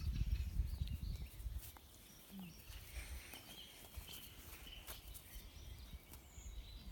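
Faint outdoor ambience: a low wind rumble on the phone's microphone, strongest in the first second or two, with birds chirping in the distance and a few small clicks.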